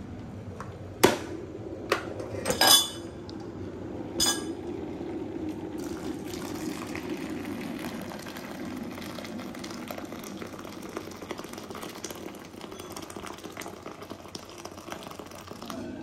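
A few sharp metallic clinks as the electric kettle is handled against the stainless steel bowl and the dish things around it, the loudest about a second in and near the third second. Then a steady stream of water pours from the kettle into the steel bowl and splashes as it fills.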